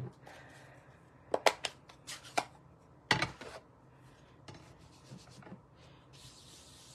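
Card-making supplies handled on a craft desk: a run of sharp taps and clicks, loudest in the first half, then a soft steady rubbing begins near the end.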